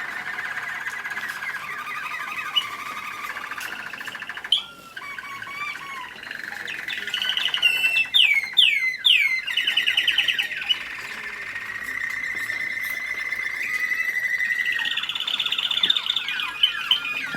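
American Singer canary singing: a continuous run of rapid trills and rolls, with a few quick sweeping notes about eight seconds in and a long even trill after them.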